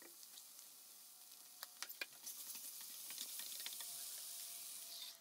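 Onion-tomato masala sizzling faintly in a nonstick frying pan, with a few light clicks about two seconds in.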